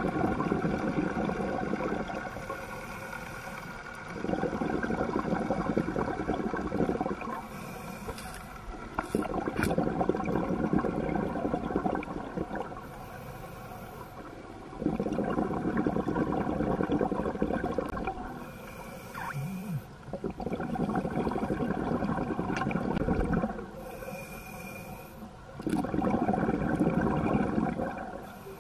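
Scuba regulator breathing underwater: each exhalation sends out a rush of bubbles lasting two to three seconds, alternating with quieter inhalations that carry a faint high hiss, about one breath every five seconds.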